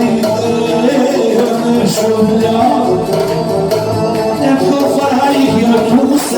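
Tallava music playing, with singing over the band.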